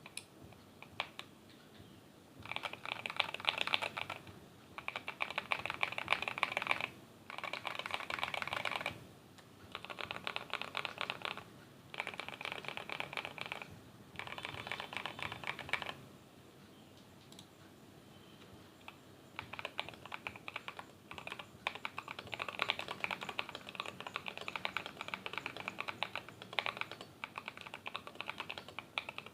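Fast typing on a mechanical keyboard with stock, unlubed WS Morandi switches in an aluminium Idobao ID80 v1 case with dye-sub cherry profile keycaps. The typing comes in bursts of a second or two with short gaps, stops for about three seconds past the middle, then runs on steadily near the end.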